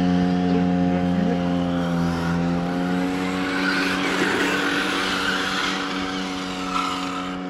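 Radio-controlled electric cars running on a track: tyre scrub and skidding that swells as a car passes close in the middle, over a steady pitched hum.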